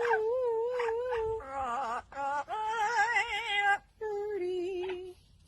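A high voice holding a series of wavering, singing-like notes, each about a second long, with short breaks between them.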